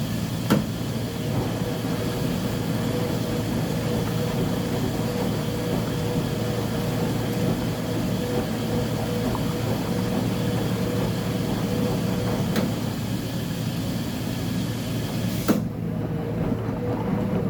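Uni-Mac UniMat 35 commercial washing machine running steadily through its cycle, with a continuous mechanical hum and three sharp clicks.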